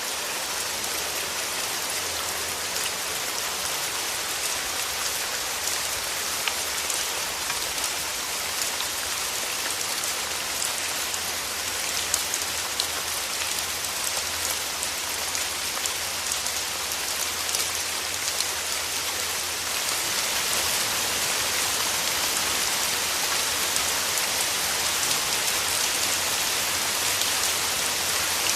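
Steady rain falling: a dense, even hiss with many small drop ticks scattered through it, growing a little louder about two-thirds of the way through.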